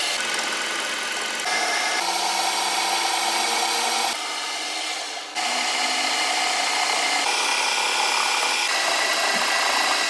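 Machine-shop noise of power tools cutting steel, continuous and loud, in several spliced segments that change abruptly.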